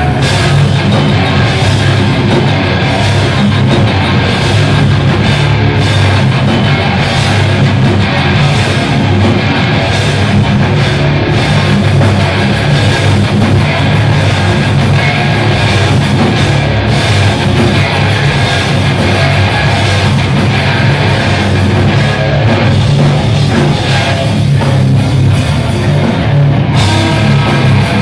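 Hardcore metal band playing live: distorted electric guitars, bass guitar and drum kit, loud and dense.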